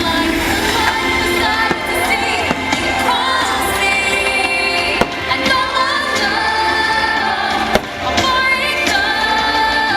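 Fireworks show soundtrack: a sung pop-orchestral song played loudly, with fireworks bangs cutting through it, the sharpest about five seconds in and again just before eight seconds.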